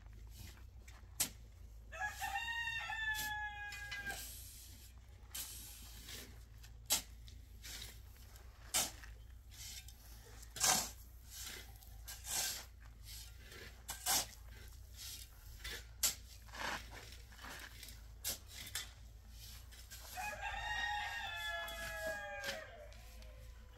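A rooster crowing twice, once near the start and again near the end, each crow about two seconds long. Scattered short knocks and clicks sound in between.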